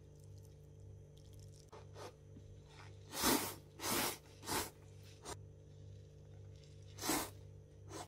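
A person slurping instant miso ramen broth and noodles straight from the cup: three loud slurps in quick succession about three seconds in, and another near the end.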